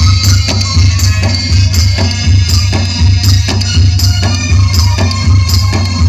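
Loud dance music played through a DJ sound system during a sound check, with very heavy, pulsing bass under a steady percussive beat.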